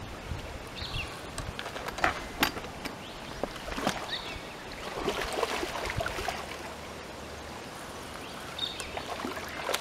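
A carp being landed and handled at the river's edge: water splashing and rustling, with a few sharp knocks.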